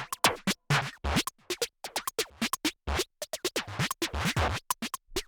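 Background electronic music with a choppy drum-machine beat: short, stop-start cut-up sounds over deep kick drums that drop in pitch.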